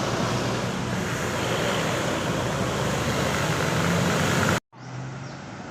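Road traffic passing at speed: a steady rush of engine and tyre noise that grows louder, then cuts off abruptly about four and a half seconds in, followed by a quieter, low engine hum.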